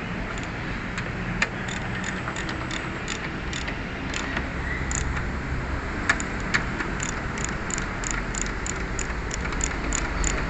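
Ratchet wrench clicking in a quick, even run of clicks that gets steadier in the second half, over a low steady hum.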